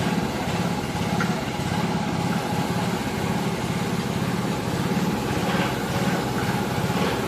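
Kubota U50 mini excavator's diesel engine running steadily at idle, with an even, rapid pulse.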